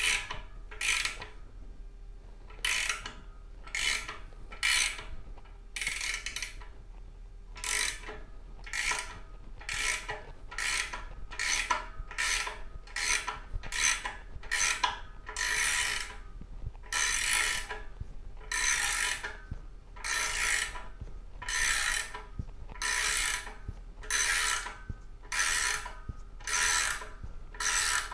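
Ratchet wrench clicking in steady back-and-forth strokes, about one to two a second, the strokes getting longer later on. It is turning the driver nut on a lead-screw bushing puller, pushing an old jackshaft bushing that has just broken loose out of a Jaguar V12's aluminium block.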